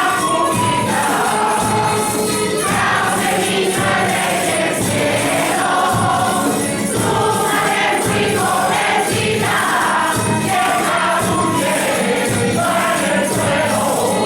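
A villancico, a Spanish Christmas carol, sung by a group of voices over instrumental accompaniment with a steady percussion beat.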